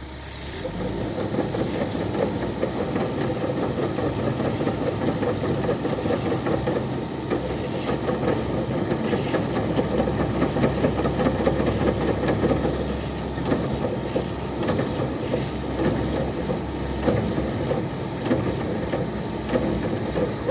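Ajax self-loading concrete mixer running steadily under work, a dense mechanical clatter with short hisses every second or two.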